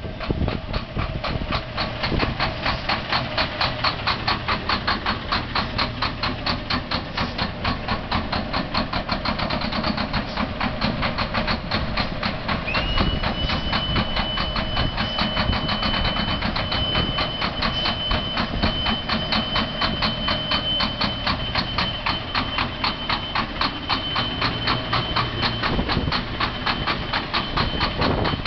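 Buggyra Freightliner race truck's diesel engine idling and creeping along at low revs as it is parked. It has a lumpy beat of about three or four pulses a second. A thin, steady high whine sets in about halfway through.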